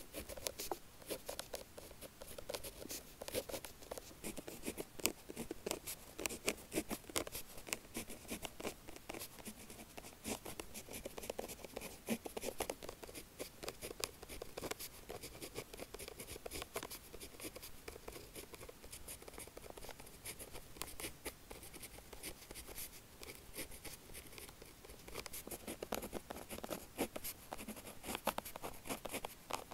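A 0.5 mm bullet-tip pen writing on paper: a steady run of quick, scratchy pen strokes and taps.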